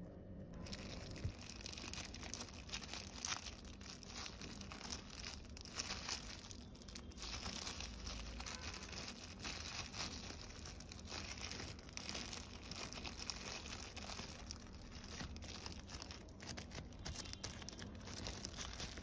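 Close-up crinkling and crackling of a thin plastic glove and paper wrapper as a soft, spongy cake-like squishy is squeezed and pressed, starting about half a second in and running on as dense, uneven crackles.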